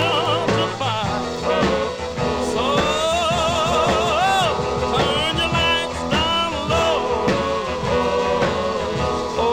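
Music: an upbeat song with a sung vocal line over a band with a steady beat.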